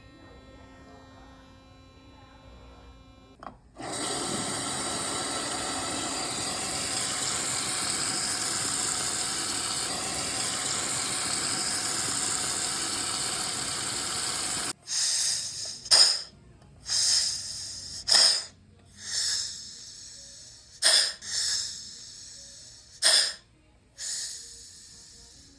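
A dental instrument running with a hiss and a high whine for about ten seconds, then switched on and off in about nine short bursts.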